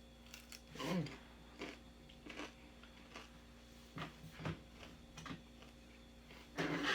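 Crunchy fried chicken skin being chewed close to the microphone: short crisp crunches, about one a second. A brief hum of pleasure comes about a second in and again near the end.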